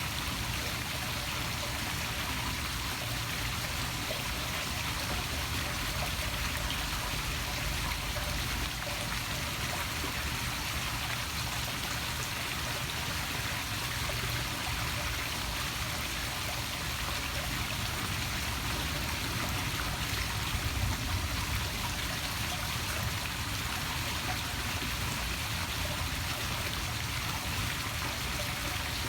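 Poolside waterfall feature splashing steadily into a swimming pool.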